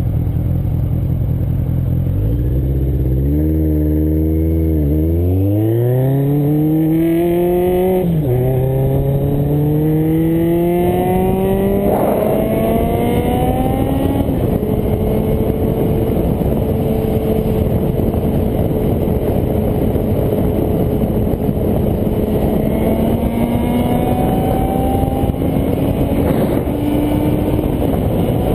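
650 cc motorcycle engine pulling away and accelerating through the gears. Its pitch rises and drops at each upshift, twice in the first half, then it holds a steady cruise before rising again near the end, over a constant rush of wind and road noise.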